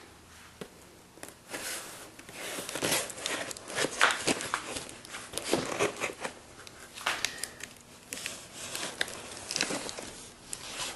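An unopened shipping package being handled and turned over: irregular rustling and crinkling with scattered light knocks.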